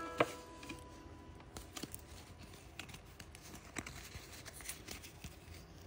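Scattered light clicks and soft rustles of trading cards and foil booster-pack wrappers being handled, with one sharper click about a quarter second in.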